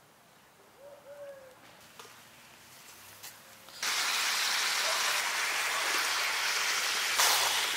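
A faint bird call about a second in. Then, near the middle, duck meat starts sizzling loudly in a wok over a wood fire: an even hiss, briefly louder near the end as chunks of potato are stirred in.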